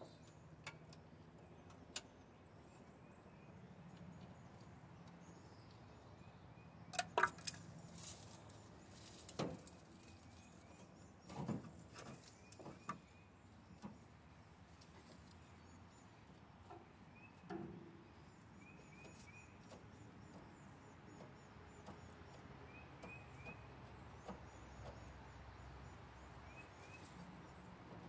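Scattered clinks and knocks of metal hand tools and engine parts being handled, a few at a time, with small birds chirping faintly in short groups in the background.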